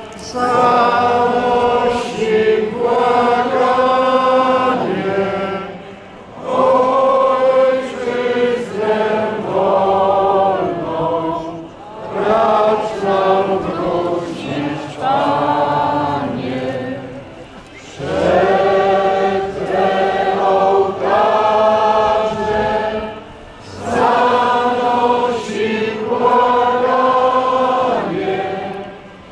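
Many voices singing together, a crowd or choir: a slow song in long held phrases of about six seconds, with short breaks between them.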